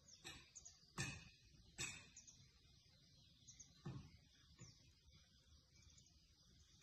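Near silence with a faint outdoor background, broken by three short knocks: about a second in, just before two seconds, and near four seconds, the first the loudest.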